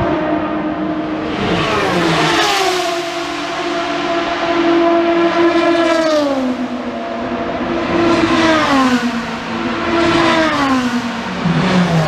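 Several endurance race cars pass one after another at full throttle, their engine notes climbing as they accelerate and then dropping in pitch as each goes by.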